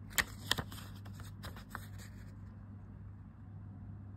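A banknote handled between the fingers: a few short crinkles and taps of the paper in the first two seconds, then stillness over a steady low hum.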